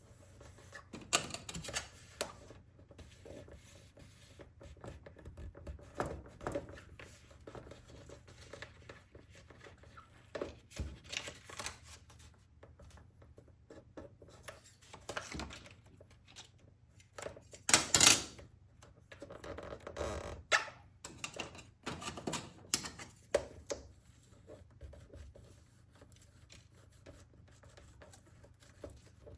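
Intermittent scraping, squeaking and rustling of adhesive vinyl number plate graphics being handled and smoothed down with a rounded edge used as a squeegee. The longest and loudest scrape comes about 18 seconds in.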